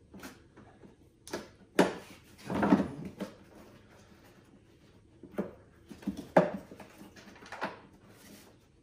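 Hard plastic trim clicking and knocking as the cabin filter housing cover under the windscreen is pushed back into place on an Audi S4, with a short rustling scrape about two and a half seconds in.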